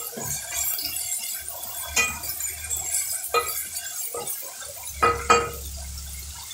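A spoon stirring vegetables in an aluminium pot, scraping and knocking against the pot, with several sharp knocks; the loudest two come in quick succession about five seconds in. Under it, a steady hiss of the vegetables frying in oil.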